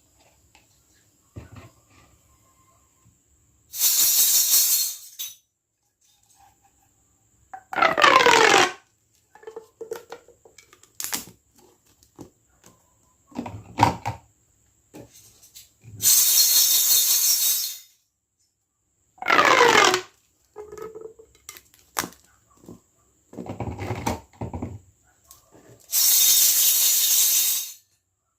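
Toy packaging and small plastic pieces being handled: rustling, tearing-like passes of one to two seconds, three of them falling in pitch, with small clicks and taps in between.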